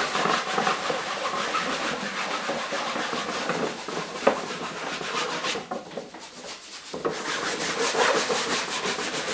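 A sponge scrubbing a thin wash of green paint across a canvas sheet in quick back-and-forth strokes. The scrubbing stops briefly a little past halfway, then starts again.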